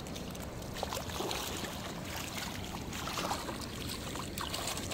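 Shallow seawater lapping and trickling over sand and rocks, with wind rumbling on the microphone.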